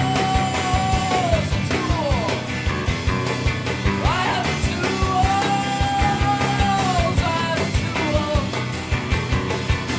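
Rock song from a 1990s indie band's studio album, with a steady drum beat under guitars and long held high notes that slide down in pitch, about a second in and again about seven seconds in.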